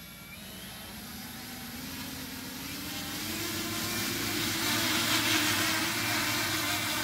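Electric motors and propellers of a tandem tilt-wing VTOL testbed spinning up for a vertical takeoff. A hum climbs in pitch over the first few seconds and then holds steady, while the rush of propeller wash grows louder as the aircraft lifts off into a hover.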